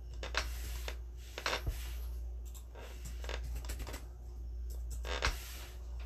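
A few short, soft scrapes and rustles of handling, spread a second or so apart, over a steady low hum.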